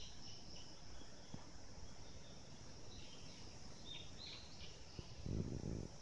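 Insects singing in a steady high-pitched drone, with a few short higher chirps past the middle and a brief low muffled rustle near the end.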